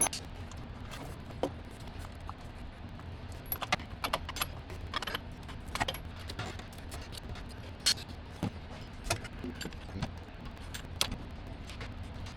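Scattered metallic clinks and taps of hand tools and parts on metal during reassembly work on a mini excavator, irregular and a second or so apart, over a low steady hum.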